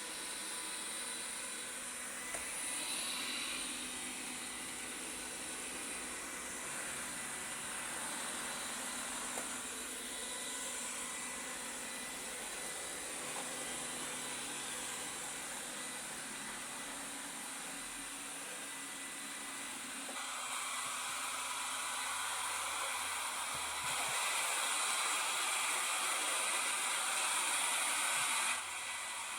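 Xiaomi S10 robot vacuum running, a steady whirring hiss with a faint high whine. It grows louder about two-thirds of the way through, louder again shortly after, then drops back abruptly near the end.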